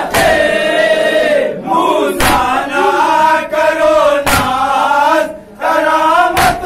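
Group of men chanting a Shia mourning salaam in unison, the drawn-out lines broken by a sharp collective chest-beat (matam) about every two seconds.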